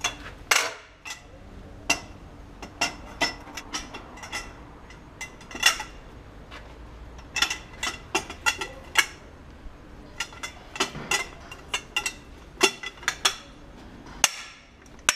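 Irregular metal clinks and clicks of a socket wrench on a long steel bar working a tractor's rear-wheel nuts, loosening nuts that were tightened very hard.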